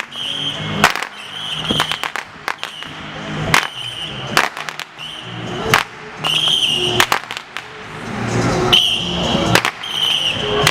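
Consumer fireworks and firecrackers going off in an irregular string of sharp bangs and crackles, over dramatic background music.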